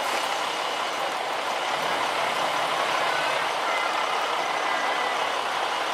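JR Shikoku 2000 series diesel railcar running steadily as it creeps along the platform, engine noise without breaks.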